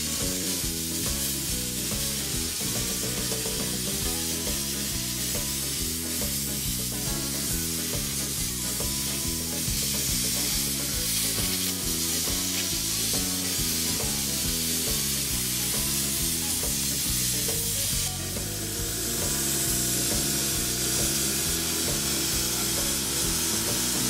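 Plasma cutter hissing steadily as its torch cuts through a steel plate, a little brighter about eighteen seconds in, with background music underneath.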